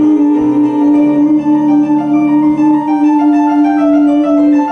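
Stage-musical accompaniment on keyboard: one long held note under changing chords.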